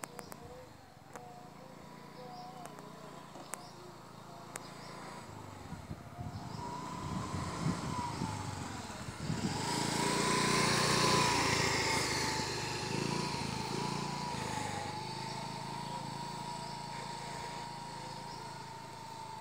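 Motor scooter riding by, its engine note growing louder as it passes close about halfway through, then fading as it rides away.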